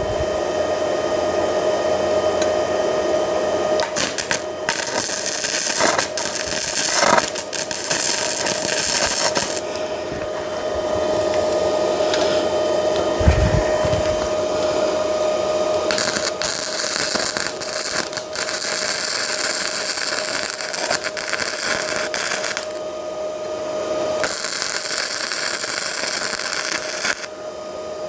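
Gasless flux-core MIG welding arc crackling and sizzling as beads are laid on a pipe, in several runs broken by short pauses, over a steady hum.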